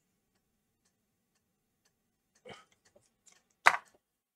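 Almost silent at first, then a few light clicks and knocks from tools being handled on a workbench. One sharp click near the end is the loudest.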